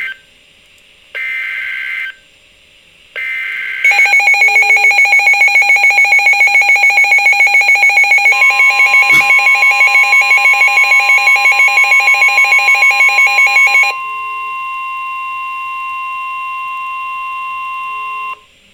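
Emergency Alert System header data bursts, a harsh buzzing chirp twice with short gaps, then a loud, rapidly pulsing alarm tone for about ten seconds. Partway through, a steady single alert tone joins it and sounds on alone after the pulsing stops, cutting off near the end.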